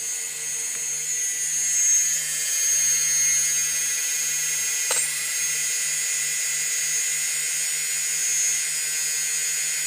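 Small electric quadcopter motor spinning with a steady high-pitched whine, with a single click about five seconds in. The motor stalls when its wiring is moved, which the owner puts down to a poor bullet connector at the motor end.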